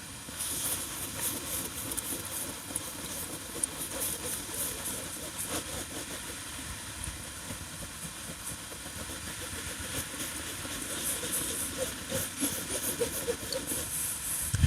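Cloth rubbing over a PVC inflatable boat tube, cleaning the surface with solvent cleaner before gluing a patch: a rough, irregular rasping of wiping strokes.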